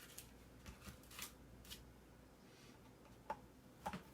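Faint handling noises: a few light clicks and rustles from parts of a homemade, tape-wrapped outlet box being taken apart, the sharpest two in the last second.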